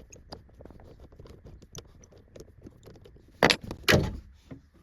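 Light clicks and scrapes of an Allen key undoing the screws on a plastic trim block, then two loud knocks close together about three and a half seconds in.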